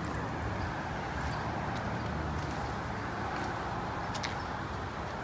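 Steady street background noise: an even, continuous rush with no distinct engine note, and a faint click about four seconds in.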